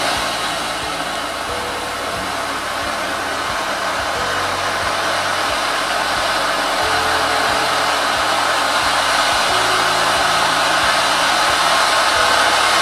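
Homemade silver fireworks fountain (gerb) of black powder with magnalium and a little coarse pine charcoal, burning with a steady loud hiss of its spark jet that grows slowly louder.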